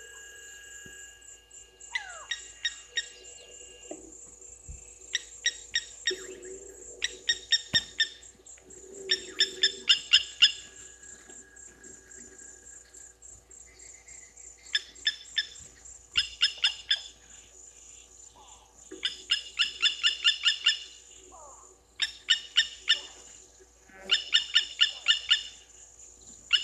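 Blacksmith lapwing calling: sharp notes in quick runs of four to eight, repeated every second or two. A steady high insect buzz runs underneath.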